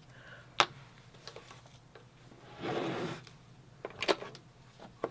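Clear plastic oval template of a Creative Memories Custom Cutting System being handled and set on a paper mat: a sharp click, a short sliding rustle, then a couple of small clicks.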